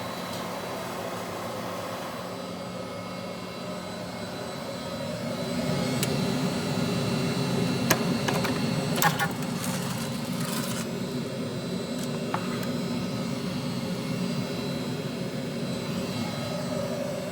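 Stand-on commercial dry vacuum (Chariot Star Vacuum 34) running, its suction motor giving a steady whir and rush of air that grows louder about five seconds in. A few sharp clicks and knocks come through the middle.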